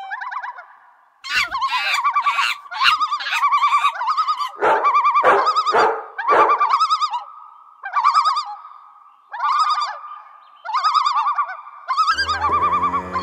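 Small dogs howling in a run of about a dozen short, quavering bursts, with a few faint low thumps in between.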